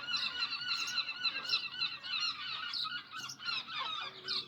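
A flock of seagulls calling together: many short, overlapping calls that run on without a break.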